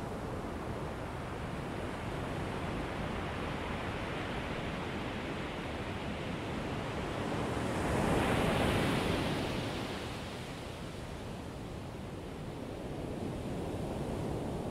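Ocean surf washing on a beach, a steady rushing noise that swells louder about eight seconds in, then eases off.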